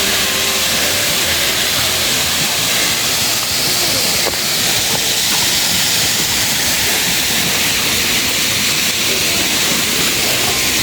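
Waterfall: a steady, loud rush of falling water that holds an even level throughout.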